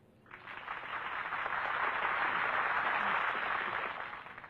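Crowd applauding, starting about a third of a second in, swelling to a steady level and dying away near the end.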